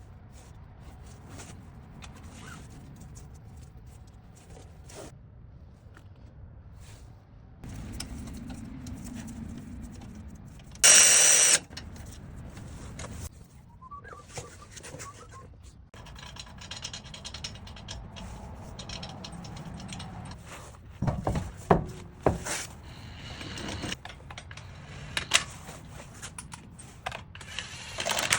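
Tools and metal brake parts being handled during front brake and rotor work: scrapes, clinks and knocks. One short, loud burst about eleven seconds in, and sharper knocks in the last several seconds.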